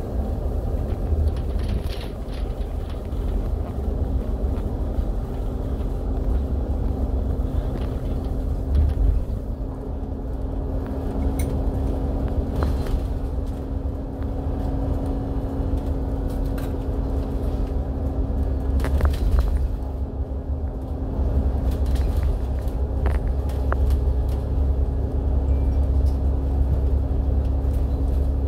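Steady low engine and road rumble with a constant hum, heard from inside a bus cruising on a highway, with a few faint light rattles.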